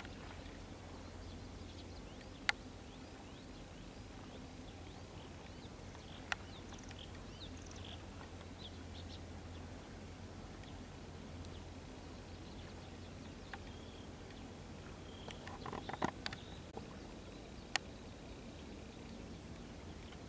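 Quiet pond-side ambience: faint, scattered bird chirps over a steady low hum, with a few single sharp clicks and a short patch of small knocks about three-quarters of the way through.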